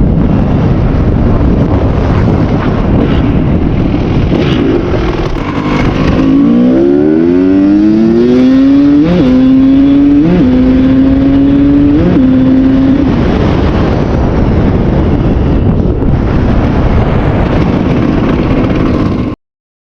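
2001 Kawasaki KX250's single-cylinder two-stroke engine running loud through a different exhaust, its pitch climbing for a few seconds, then holding with three brief blips. The sound cuts off suddenly near the end.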